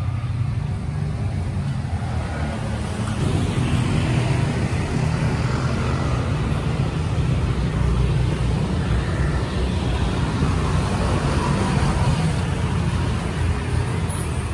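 Steady low rumble of a road vehicle on the move: engine and road noise.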